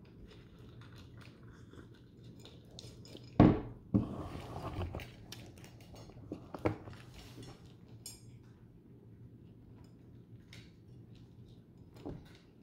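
Cat crunching dry kibble from a small bowl, faint small clicks and crunches. About three and a half seconds in a sharp loud knock and rustling as the phone is picked up and handled, with another knock near seven seconds and one near the end.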